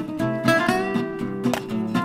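Background music: acoustic guitar playing a run of quick plucked notes.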